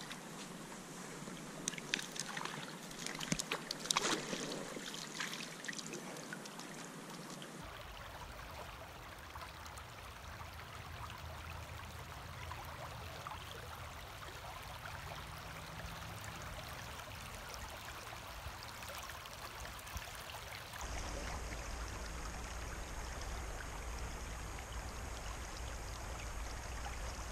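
Shallow river current running over a gravel and weed bed, with a few sharp splashes and ticks in the first several seconds. The water sound changes abruptly twice, at about 8 s and 21 s in, and a low rumble joins it after the second change.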